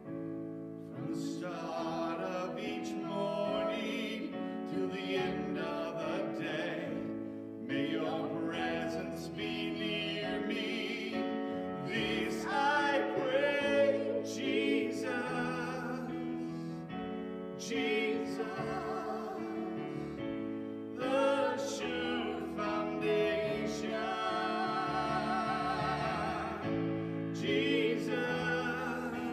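A woman singing a slow worship song with vibrato, accompanied by sustained chords on a Yamaha electric keyboard.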